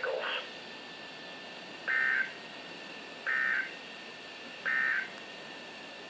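Weather radio speaker sounding the SAME end-of-message code: three short, buzzy digital data bursts about a second and a half apart over a faint hiss. They signal the end of the emergency alert broadcast.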